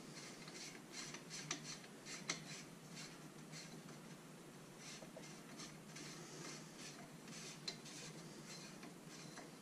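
Faint clicks and rubbing of a plastic end cap being unscrewed by hand from an Air Venturi Avenger air rifle's barrel shroud, with a few sharper ticks, the loudest about two seconds in.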